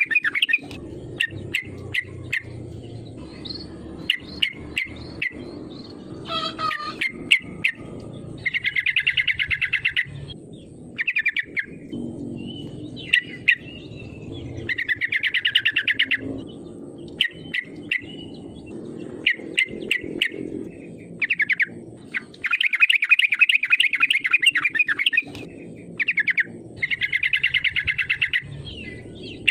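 Yellow-vented bulbul (trucukan) singing: repeated chattering phrases of rapid notes, each a second or two long, separated by short gaps and single scattered notes, over a steady low background hum.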